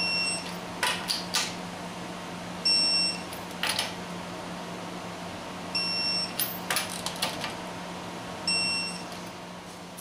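Digital torque wrench beeping as each lug nut reaches the set torque of 80 foot-pounds: four short high beeps a few seconds apart, with short clicks between them.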